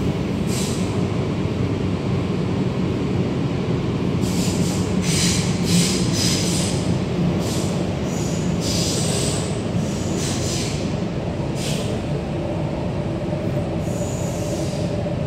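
MTR K-stock metro train running, heard from inside the carriage: a steady low rumble with repeated high-pitched wheel squeals that come and go from about four seconds in, with one more near the end.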